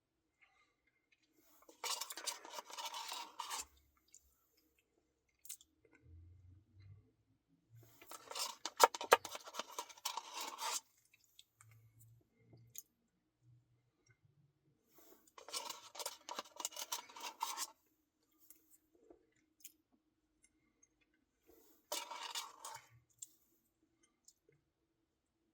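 Close-miked eating of a Dairy Queen Reese's cookie dough Blizzard: four crackly, crunchy bursts, each one to three seconds long, with quiet gaps between.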